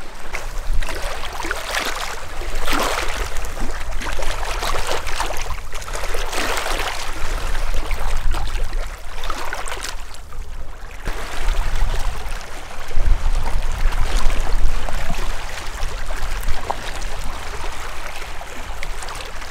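Lake water rushing and splashing, with wind rumbling on the microphone; the noise swells and eases every few seconds.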